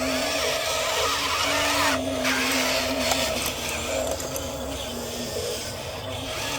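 Small electric motors and gearboxes of radio-controlled model construction machines whining as they run. The pitch steps up and down a few times as the load changes.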